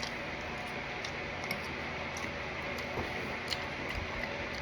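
Someone chewing a chicken wing: scattered soft clicks and wet mouth sounds over a steady background hiss.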